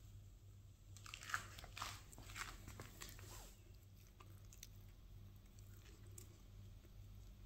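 Crisp, frying-pan-baked crust of a cheese and potato stuffed flatbread crackling as it is torn apart by hand. A burst of crunchy crackles lasts a couple of seconds, followed by fainter ones.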